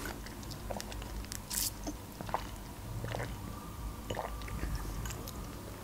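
Faint mouth sounds of sipping a drink through a plastic straw: scattered small wet clicks.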